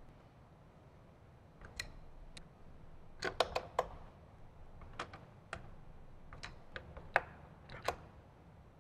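Scattered sharp metallic clicks and taps from a hand driver tightening the radio's mounting bolts into the chassis, with a quick run of clicks about three seconds in.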